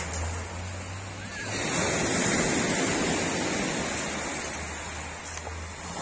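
Sea surf breaking and washing up a pebble beach, a steady rush of water that swells about a second and a half in and then slowly eases off.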